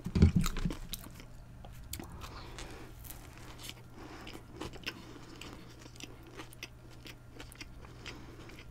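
A louder thump near the start as the burger is lifted off the wooden board, then a bite into a veggie crispy chicken burger and close-miked chewing with scattered soft crunches and mouth clicks.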